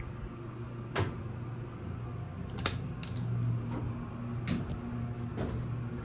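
Steady low hum inside a ThyssenDover traction elevator cab, with a few sharp clicks along the way.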